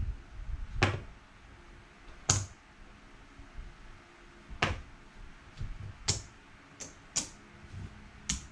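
Casino chips clicking together as they are picked up, set down and stacked: about seven sharp, separate clicks at irregular intervals.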